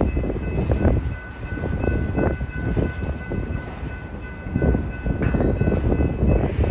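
Freight cars rolling through a grade crossing, their wheels rumbling and knocking irregularly over the crossing rails. Above them the crossing's electronic bell rings steadily in high tones.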